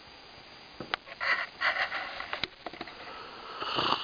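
Soft, breathy sniffs or exhalations close to the microphone, two short ones a little over a second in and a longer one swelling near the end, with a few sharp handling clicks.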